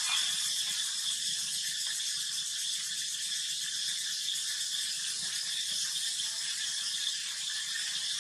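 Steady, high-pitched buzzing of insects, an even drone that does not let up.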